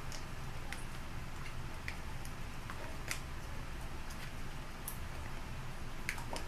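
Wooden chopstick clicking and tapping against a plastic container while prying out stiff slime, in irregular sharp ticks.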